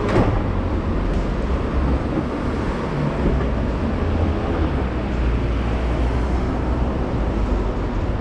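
Steady city street noise with vehicle traffic and a low rumble, with a short sharp click right at the start.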